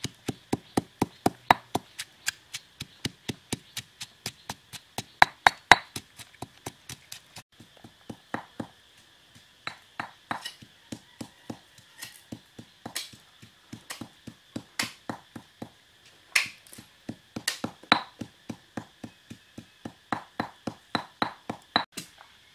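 Wooden pestle pounding lemongrass, chilies and shallots in a stone mortar: a run of sharp knocks, about four a second at first, becoming slower and less even about seven seconds in.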